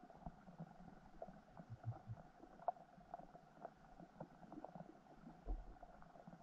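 Faint underwater ambience: scattered small clicks and ticks over a dull low rumble, with a soft low thump about five and a half seconds in.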